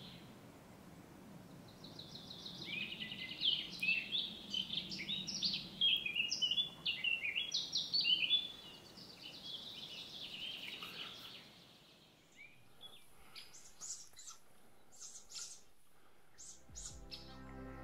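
A small songbird singing a fast, varied, twittering song for several seconds, starting about two seconds in, over faint forest ambience; after it only scattered short chirps.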